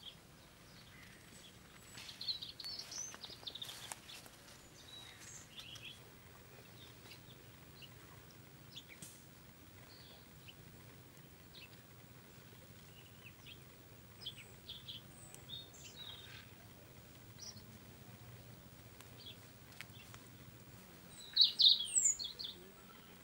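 Wild birds chirping in short, scattered calls over faint outdoor background noise, with a louder cluster of calls near the end.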